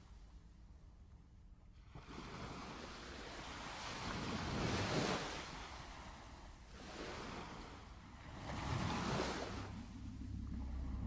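Ocean surf: waves washing in, swelling and falling back every two to three seconds. A low, steady music note comes in near the end.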